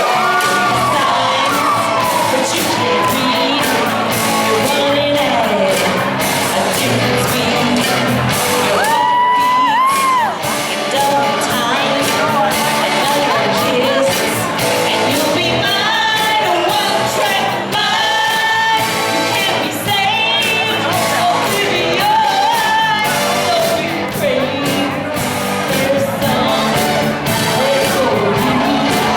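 Loud rock song with a singing voice, mixed with shouts and whoops. A long held sung note comes about nine seconds in.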